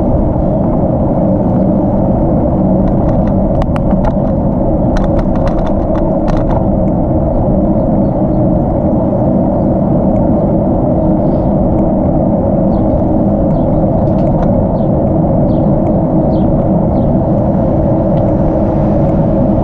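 Steady wind rushing over the microphone of a bicycle-mounted camera, with road and tyre rumble, as the bike rolls along a paved street. A short run of sharp clicks comes a few seconds in.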